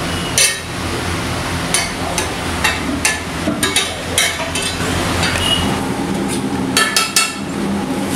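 Metal spatula clanking and scraping on a large flat griddle: a string of sharp, ringing metallic clinks at irregular intervals, three in quick succession near the end, over a steady low hum.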